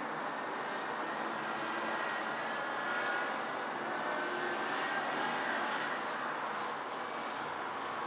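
Steady rush of distant city traffic, with a faint drawn-out whine swelling through the middle and easing off near the end.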